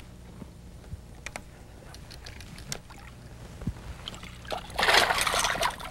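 A hooked largemouth bass splashing at the surface beside the boat as it is landed by hand. The splash is a loud, noisy burst about five seconds in, over a low steady hum.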